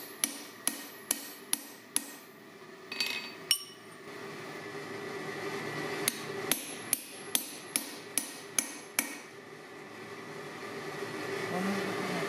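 Hand hammer striking a punch driven into a red-hot steel claw hammer head on an anvil, about two sharp ringing blows a second, in two runs with a pause between. In the pause come a couple of ringing metal clanks, and a steady rushing noise builds near the end.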